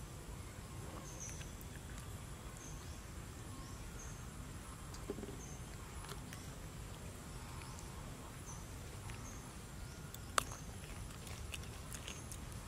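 Outdoor ambience of a forest floor: short high chirps repeating about once a second over a low steady rumble. A few sharp clicks break in, the loudest about ten seconds in.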